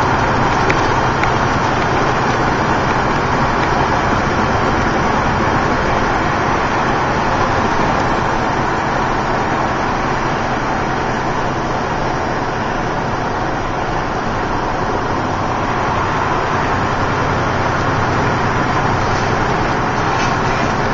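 Truck driving at freeway speed: a steady engine drone with tyre and road noise, heard from the cab.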